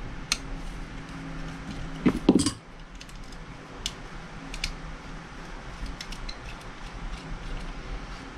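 Small clicks and taps of hands and a tool working on an airsoft pistol's plastic lower frame, with one louder clatter about two seconds in, over a steady low hum.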